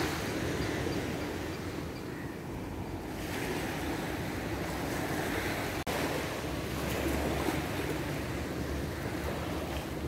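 Ocean surf washing onto a sandy beach, swelling and easing every few seconds, with some wind buffeting the microphone.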